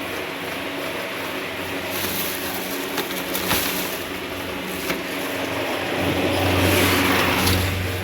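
Steady machine hum with a few sharp clicks, growing louder about six seconds in.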